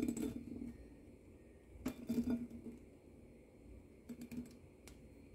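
Soft clicks and taps as boiled chickpeas are tipped from a small glass bowl into a serving dish. They come in three short clusters: at the start, about two seconds in, and about four seconds in.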